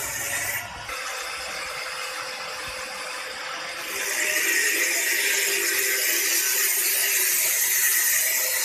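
Handheld angle grinder with a cut-off disc cutting through a 304 stainless steel rod: a steady high whine with grinding noise, quieter for the first few seconds and louder from about four seconds in.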